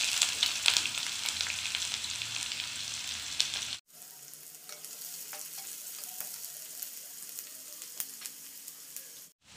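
Chopped onion frying in hot mustard oil with panch phoron and dried red chilies in a kadai: a loud sizzle as the onion goes in, slowly settling. After a sudden break it goes on as a quieter sizzle with scattered crackles.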